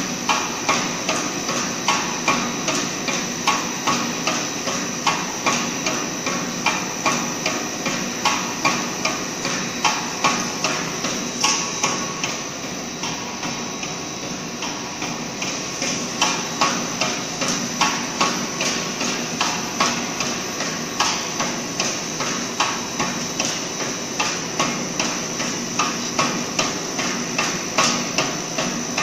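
Snack pellet cutting machine knocking in a fast, regular rhythm, a few strokes a second, as its cutter chops the extruded wavy sheet into chips pellets, over a steady hum of running machinery. The knocking is fainter for a few seconds in the middle.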